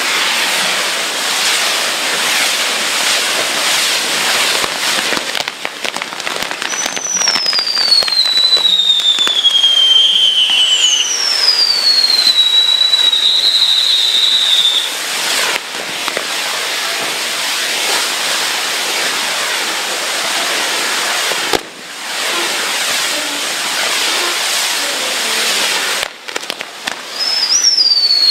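Fireworks crackling loudly and densely without a break, with long whistles that slide down in pitch: two in a row a quarter of the way in, and another near the end.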